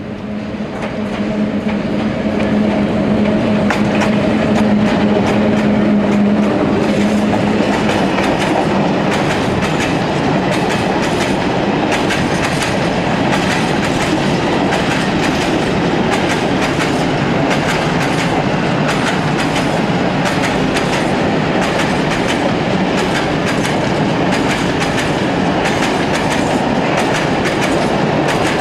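ET41 electric freight locomotive passing close with a steady hum, then a long train of empty open coal wagons rolling past, wheels clicking rapidly and continuously over the rail joints. The hum dies away about six seconds in, leaving the wagons' rumble and clatter.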